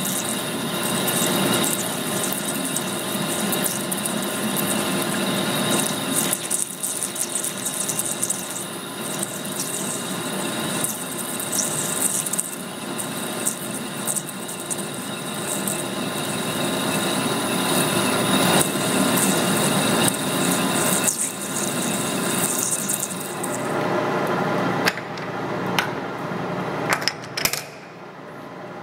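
Metal lathe turning a steel part under cut: the lathe's motor and gears run with a steady whine while the tool shears off stringy chips with a hiss. The cutting hiss fades about 24 seconds in, a few sharp clicks follow, and the sound drops near the end while the chuck is still spinning.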